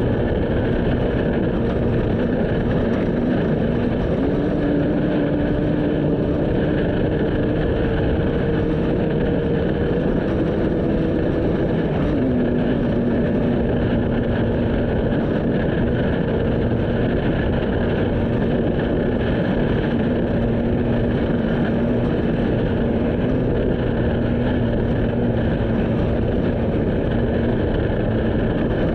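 A vehicle's engine running at a steady speed under a continuous rush of wind and road noise. The engine note steps up about four seconds in and drops back down about twelve seconds in.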